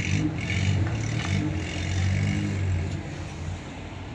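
A motor vehicle engine running nearby: a steady low hum that swells in the first second and dies away about three seconds in.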